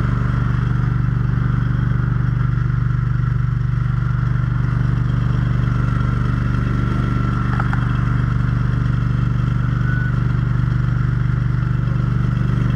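Fire brush truck's engine-driven pump running steadily: a loud, even engine drone at constant speed while it pumps water.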